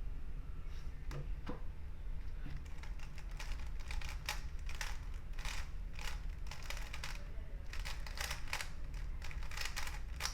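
GAN354 M magnetic speedcube being turned at speed: a rapid, uneven run of sharp plastic clicks and clacks from its layer turns. The clicks begin about a second in and grow dense.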